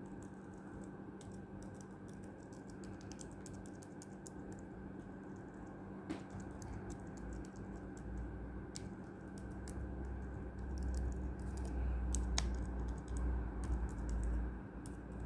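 Typing on a 2014 MacBook Pro's keyboard: runs of quick key clicks as the keys are tried one after another along the rows, testing them after the keyboard repair. A low rumble swells under the clicks from about halfway in.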